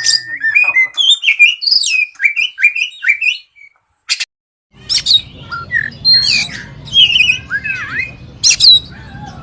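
Oriental magpie-robin (kacer poci) singing loudly: a rapid run of varied whistles, slurred chirps and sharp harsh notes. The song breaks off for about a second near the middle, then resumes over a low steady hum.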